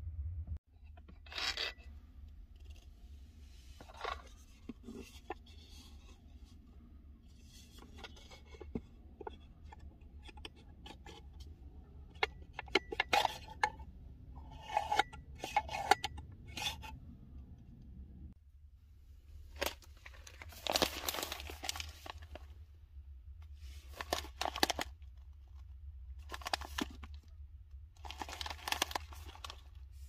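Clicks, knocks and scrapes of wood and metal as a manual coffee grinder with a wooden box and copper hopper is handled and its small drawer slid. In the second half come several bursts of crinkling and tearing as a foil bag of coffee beans is opened and handled. A steady low hum runs underneath.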